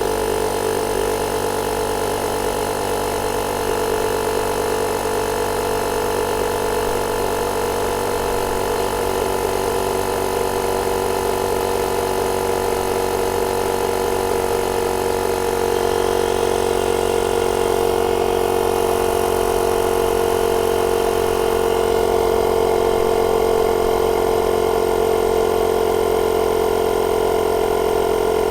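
Small 12-volt air compressor built into a JF EGWO 1000A jump starter running steadily as it inflates a tyre toward its 45 psi cut-off.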